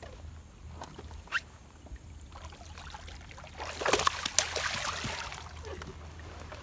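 Sounds aboard a fishing boat: a low steady hum with scattered knocks. About four seconds in a louder clattering, rustling burst lasts over a second.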